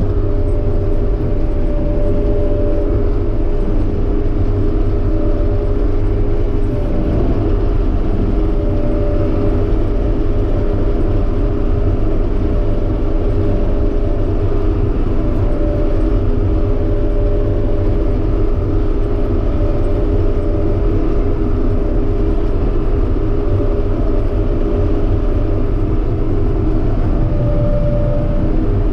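Claas Dominator 85 combine harvester running: a loud, steady engine and machinery drone, with a higher whine that fades in and out several times.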